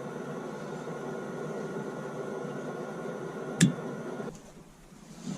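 Chinese diesel air heater running, a steady blower hum with several steady tones. A sharp click comes about three and a half seconds in, and the hum cuts off suddenly shortly after.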